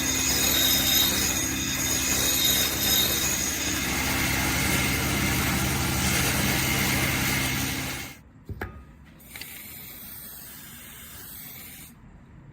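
A workshop machine running steadily with a low hum and a mechanical rattle, cutting off about eight seconds in, followed by a single click and fainter noise.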